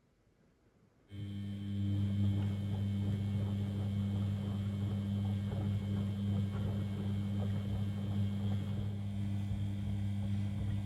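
Beko WML 71433 NP washing machine starting up abruptly about a second in with a steady, deep mains-pitch hum over a rushing water-like noise, typical of its pump or water valve running.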